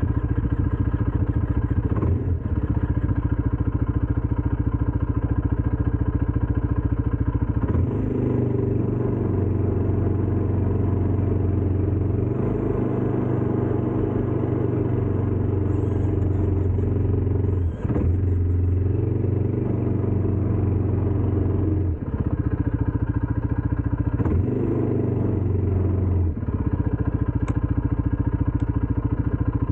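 ATV engine running, its note stepping up and down several times as the throttle changes.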